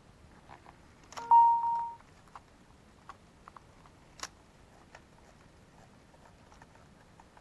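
Sony Aibo ERS-7 robot dog gives a single electronic beep about a second in, one steady pitch held for under a second. Scattered faint clicks follow as it moves.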